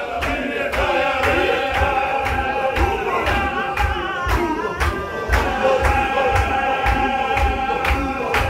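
Men's voices chanting a Qadiri Sufi zikr together, with a voice holding long sustained notes over the group chant. A steady beat of stamping steps, about two a second, keeps time.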